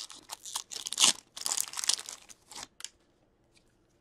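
Plastic card packaging crinkling and rustling in the hands as trading cards are handled, in quick bursts that stop about three seconds in.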